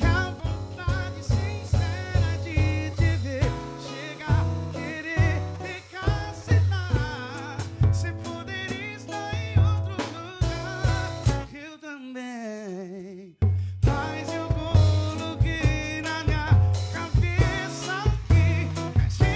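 A male singer performing a romantic pop song with a drum kit keeping a steady beat. About twelve seconds in the drums stop and the voice slides down alone on a wavering note, then the drums come back in.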